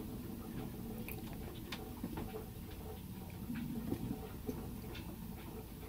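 Black marker pen writing: faint, irregular light scratches and ticks as the letters are drawn.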